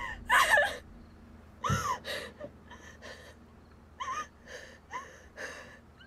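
A woman sobbing in fear: a string of short, gasping breaths and whimpers with pauses between them, the loudest about half a second in.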